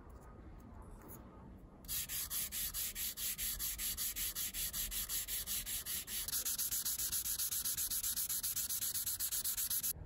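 Fine-grit wet sandpaper on a foam block rubbed back and forth over a flat aluminum tag. It gives a hissing scratch in quick, even strokes, about five a second, which starts about two seconds in and stops just before the end.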